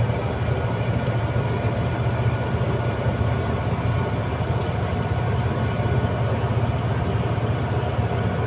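Truck's diesel engine running in a steady low drone, heard from inside the cab as the truck rolls slowly along.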